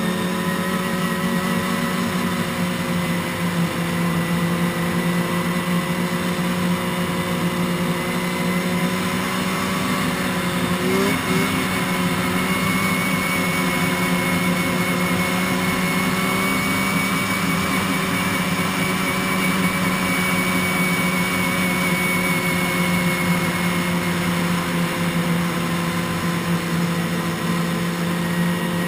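Sport ATV engine running at a steady cruising speed, its pitch holding nearly constant with only slight rises and falls, over a steady rush of noise.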